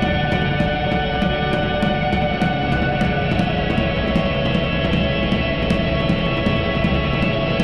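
Electric guitar through live electronic processing, holding a dense drone of layered sustained tones over a heavy low rumble. Drums tick along at an even pulse of about four hits a second.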